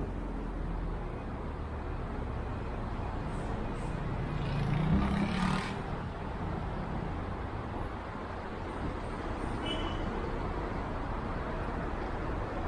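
Street traffic noise: a steady hum of passing road vehicles, with one vehicle coming by louder about five seconds in.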